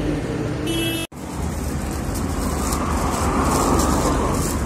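Roadside traffic noise: a steady rumble of passing vehicles that swells as one goes by about three to four seconds in. It cuts out abruptly for a moment about a second in.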